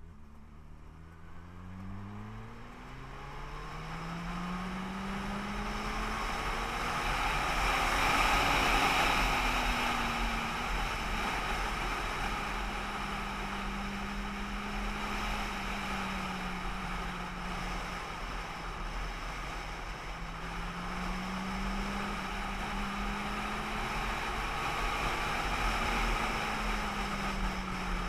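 Car engine revving up in the first few seconds, then running at a steady cruise with its note rising and falling gently under a constant hiss of road and wind noise.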